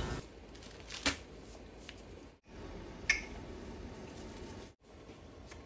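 A few sharp clicks as a bundle of dry spaghetti is handled, over a faint steady background of the simmering pot. The sound drops out twice, briefly.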